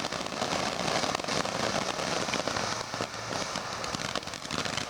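Small consumer firework burning with a dense, steady crackle over a hiss, like many tiny pops in quick succession.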